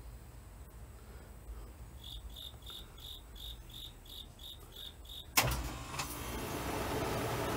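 Faint high-pitched chirps repeating about three times a second over a low hum, stopping with a sharp click about five seconds in, after which a steady hiss sets in.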